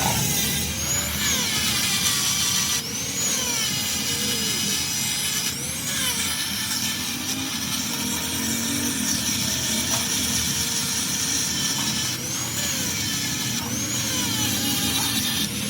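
A power tool running steadily on metal, with a whine that sweeps up and back down every second or two.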